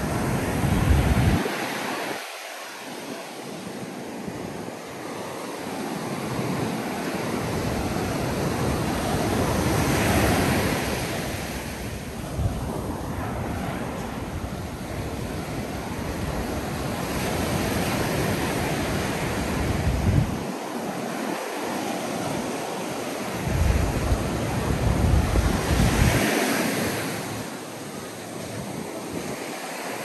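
Ocean surf breaking and washing up a sandy beach, swelling and fading with each wave. Now and then, gusts of wind rumble on the microphone.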